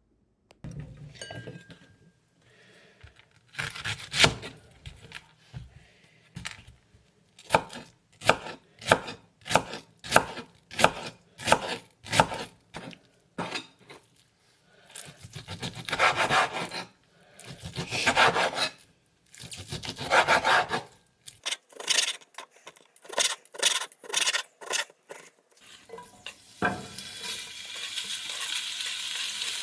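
Kitchen work sounds: runs of quick knocks about two a second and several longer scraping strokes, then near the end food starts sizzling in a hot pan.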